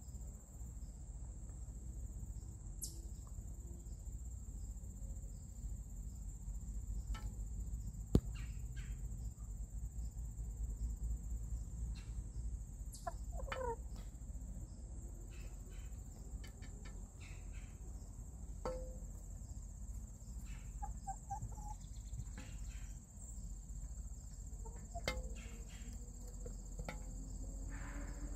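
Several hens clucking and giving short calls at intervals, over a steady high trill of crickets. A single sharp click about eight seconds in.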